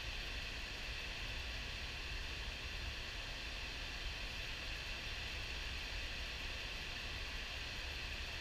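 River water spilling at high flow over a diversion dam's spillway into churning whitewater below: a steady, even rush of falling water with a low rumble underneath.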